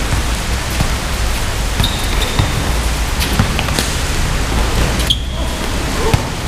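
Basketball bouncing and hitting hands during play on a hard outdoor court, with sneakers squeaking twice, over a steady rushing background noise.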